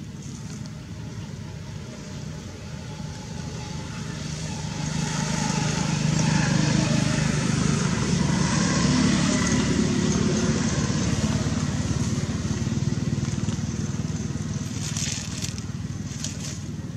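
A motorcycle engine passing on the road, a low hum that grows louder over the first six seconds or so, holds for a few seconds, then fades away. A few brief crackles come near the end.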